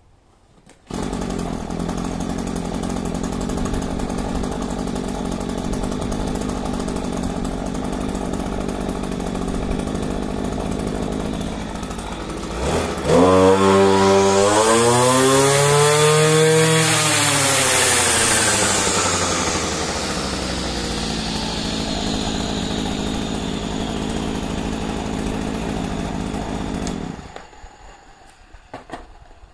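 Kioritz SRE2355G brush cutter's two-stroke engine starting about a second in and idling, then revved hard about halfway through so the blade spins up with a rising high whine, easing back to idle as the whine falls away, and shut off near the end. It is a running check after the carburettor diaphragms were replaced with new genuine parts.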